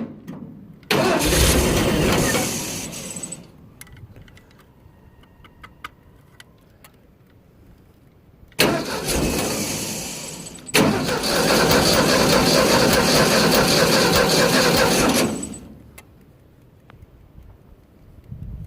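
Ford 302 V8 engine on an air compressor being cranked by its starter in two attempts, one of about two and a half seconds and a longer one of about seven seconds, without settling into a run: hard starting.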